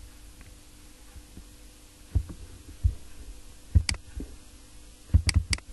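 Computer mouse clicks, a few sharp clicks in the second half, with soft low thumps of the mouse and desk being handled, over a steady low hum.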